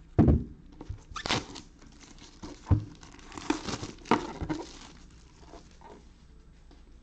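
Plastic shrink-wrap being torn and crinkled off a cardboard trading-card hobby box, in irregular rustles, with a few knocks as the box is handled. The sharpest knock comes just after the start and another near the middle.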